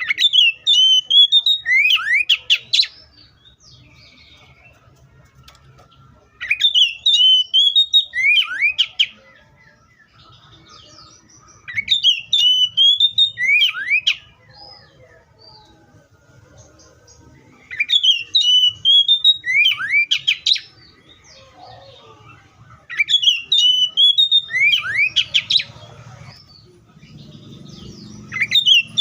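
Oriental magpie-robin singing: the same loud, warbled phrase of about two and a half seconds, ending in quick falling whistles, repeated five times with pauses of a few seconds between.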